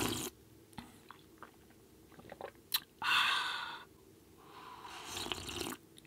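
A person taking a drink: small mouth clicks and swallows, then a loud breathy exhale about three seconds in and another that swells and cuts off near the end.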